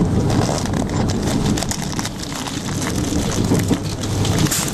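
Inside a moving passenger train: a steady low rumble of wheels running on the rails, with a dense patter of small clicks and rattles over it.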